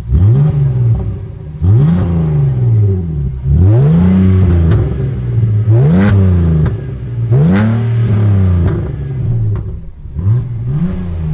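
A BMW E46 320Ci's inline-six engine revved in about six blips through its cut-open exhaust with the rear muffler removed. Each blip climbs and falls back, some held briefly at high revs, with a few sharp cracks near the peaks.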